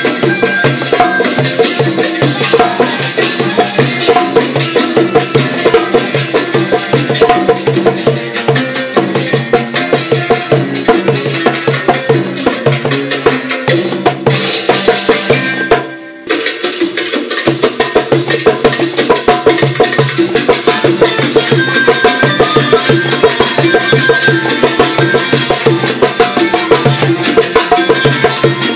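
Background music with dense percussion and a quick, steady beat; it drops out briefly about halfway through, then comes back.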